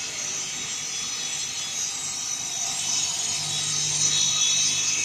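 Wood lathe cutting a spinning wooden workpiece: a steady, hissing cut with a low machine hum underneath, growing slowly louder.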